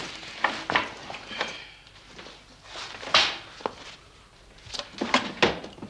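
Scattered light knocks, clicks and rustles of a leather travel bag being handled at a wooden bookshelf and of someone moving about a small room, with a sharper knock about three seconds in and a cluster of them near the end.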